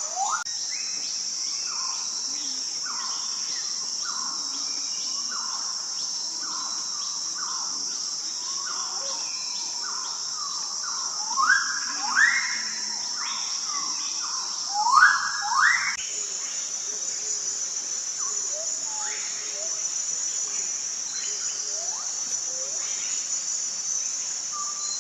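A steady, high insect drone of crickets or cicadas with birds calling over it: a run of short rising notes, and four loud upward-sweeping whistles in two pairs around the middle.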